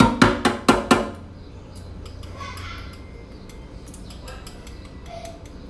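A spoon tapped rapidly against the rim of a metal cooking pot, ringing clanks at about four a second that stop about a second in, then softer scattered clinks of utensils in the pot.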